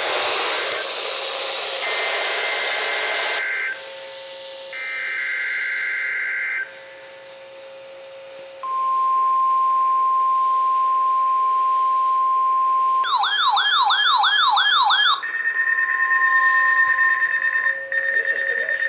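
NOAA Weather Radio alert sequence. Two screechy SAME header data bursts come first, then a steady 1050 Hz warning alarm tone lasting about four seconds. An alert receiver then goes off with about two seconds of rapid wailing siren sweeps, followed by a steady electronic alarm tone.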